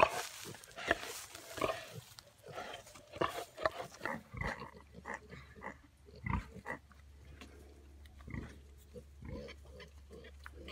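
Pigs grunting, many short grunts one after another from a sow and her piglets, with a sharp louder noise right at the start. About four seconds in, a low steady hum comes in underneath.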